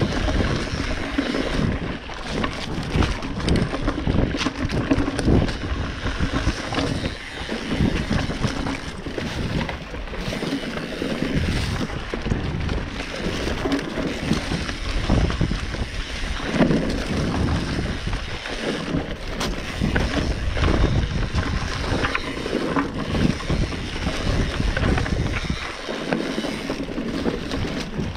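Mountain bike riding fast down a dirt forest singletrack: wind buffeting the camera microphone, with the tyres rolling over the trail and frequent knocks and rattles of the bike over roots and bumps.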